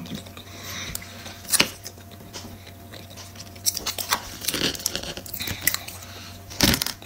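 A metal fork clinking and scraping on a glass plate, with a sharp clink about a second and a half in and a louder one near the end, among quiet chewing.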